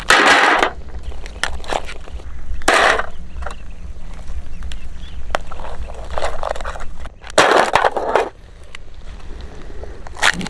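Mud crab shells and claws being cracked and pulled apart by hand: several short crunching bursts with lighter clicks in between.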